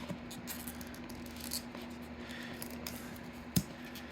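Hands handling and working open an iPhone's cardboard box: faint scratching and rustling of the packaging with small ticks, and one sharp knock near the end.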